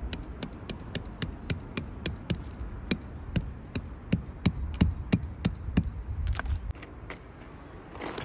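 A rapid series of sharp knocks, like hammering or chopping strikes, about three or four a second, thinning out after about six seconds, over a low rumble that stops near seven seconds.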